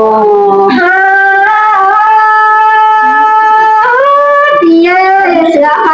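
Hát Thái folk music: a melody in long held notes, one held very steady for about a second and a half in the middle, with bending notes before and after it.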